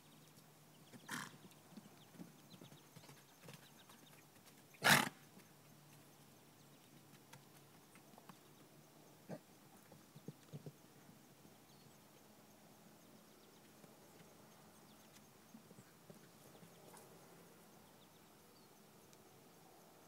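Young horse (filly) giving a short, loud snort about five seconds in, after a weaker one about a second in, with a few faint knocks, likely hoof steps, around ten seconds in.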